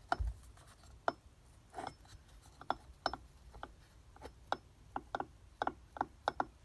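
Eaton M90 supercharger rotor waggled back and forth by hand in its housing, giving a string of small irregular clicks, about two or three a second. The clicking comes from play in the rotor, which the owner suspects is a bit loose and a sign the needle bearings may need rebuilding.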